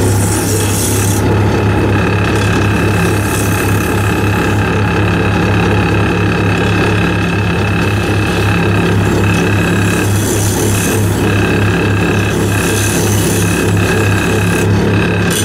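Wood lathe running with a steady hum and a high whine, while a narrow turning chisel held on the tool rest cuts the spinning wood in several short passes, each a brief hissing scrape.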